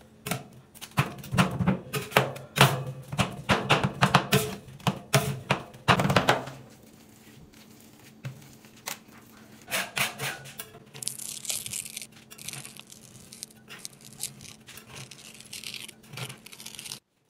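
Two metal spatulas chopping and striking on a stainless-steel rolled-ice-cream cold plate, with rapid clanking strikes for about six seconds. After that come quieter, scattered knocks and scrapes of the spatulas across the plate.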